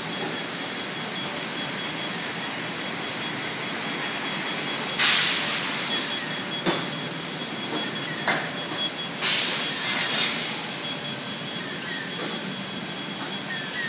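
Automated tile-stack handling machine running along its track: a steady mechanical hum with a thin, high squeal that comes and goes. Midway come several short bursts of hiss and a few clanks.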